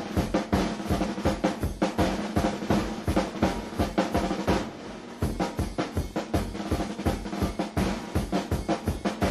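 Soundtrack music with a fast, steady drum-kit beat of snare and bass drum, about four strokes a second.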